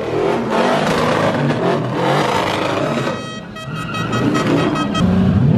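Pickup truck's engine revving hard as it spins its tires in donuts on wet pavement, the pitch rising and falling with the throttle. Near the end the engine note swells low and loud again.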